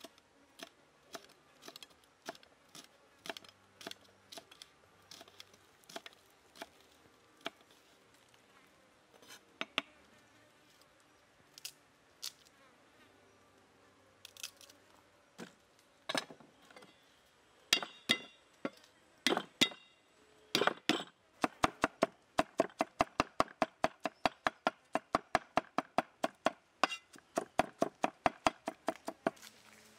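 Kitchen knife knocking on a wooden log-slice chopping board as red chillies are sliced, single cuts spaced about a second apart. Near the middle come a few louder knocks, and in the last third a cleaver minces garlic and chillies in quick, even chops, about four a second.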